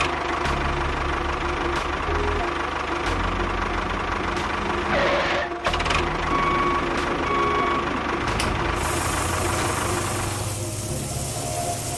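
Small electric motors of a miniature DIY tractor or bulldozer model running with a buzzing hum that shifts pitch several times, with a few clicks. A hiss joins in near the end.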